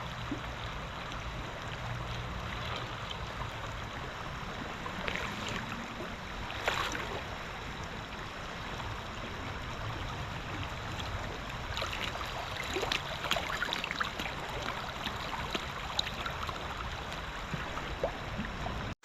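River water rushing steadily past, with a few faint short clicks here and there.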